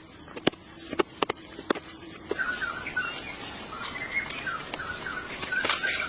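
Several sharp knocks or taps in the first two seconds, then a bird chirping in a quick run of short repeated calls.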